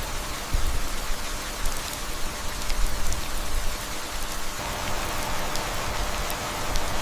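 Heavy rain falling, a dense hiss of drops with a low rumble underneath. A faint steady tone joins about two-thirds of the way through.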